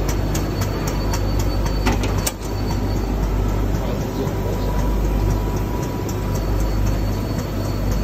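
Coolant purification unit running: a steady low machine hum with a fast, regular clicking, about three clicks a second.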